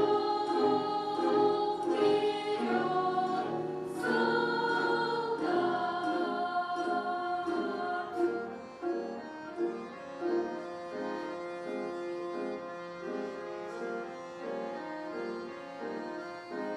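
Children's choir singing a slow song over instrumental accompaniment. About halfway through, the voices fall away, leaving a quieter accompaniment playing even, repeating chords.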